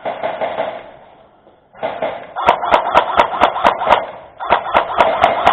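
Music with a steady, sharp percussive beat of about four clicks a second. It fades to near nothing at the start and comes back in about two seconds in.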